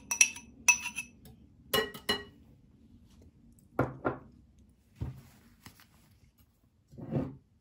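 Metal wire whisk clinking against a glass mixing bowl of yogurt, about five ringing clinks in the first two seconds, then a few duller knocks.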